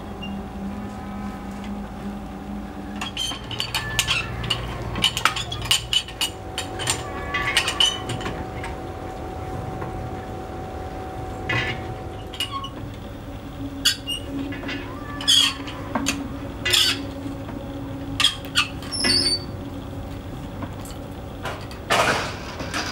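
Hand-cranked winch of a manually operated railway level-crossing barrier: metal gears and crank clinking and clanking irregularly as the wheel is turned, with a longer scrape near the end.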